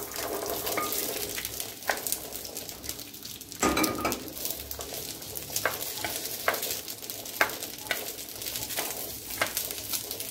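Fresh fava beans sizzling as they fry in hot pork fat in a glazed clay cazuela, stirred with a wooden spoon that clicks against the beans and pot now and then. There is a louder clatter a little under four seconds in.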